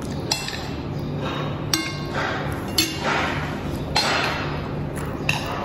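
A metal spoon clinks against a ceramic plate a few times, with short separate strikes. One strike, about two seconds in, rings briefly.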